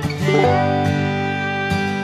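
Instrumental background music with plucked string instruments, notes sounding with sharp attacks and ringing on.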